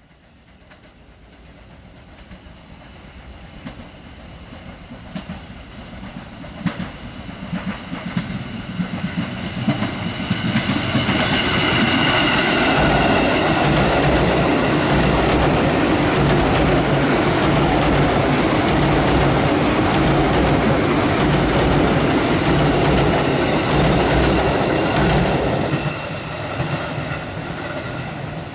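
KRL Commuter Line electric train approaching and passing at speed, growing from faint to loud over about ten seconds, its wheels beating a steady rhythm over the rail joints. The sound drops off sharply a few seconds before the end.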